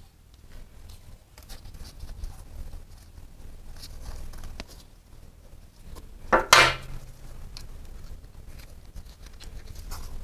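Small clicks, taps and rustles of gloved hands refitting the coolant drain fittings on a motorcycle engine, with one much louder scrape or clatter about six and a half seconds in.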